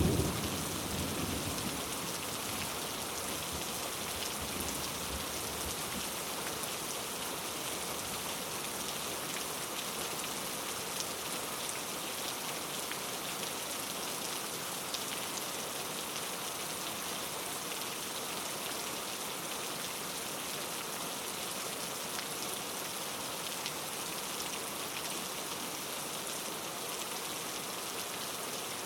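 Steady rain falling on a surface, an even hiss of drops. A low thunder rumble fades out within the first couple of seconds.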